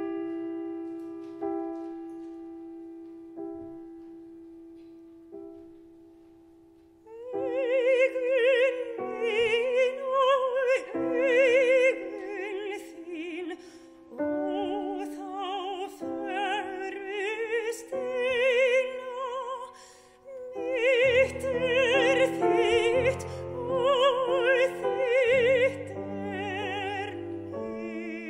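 Mezzo-soprano and piano performing a slow Icelandic art song. The piano opens alone with sustained chords struck about every two seconds, and the voice enters about seven seconds in, singing with a wide vibrato over the piano. Deeper bass chords come in near the end.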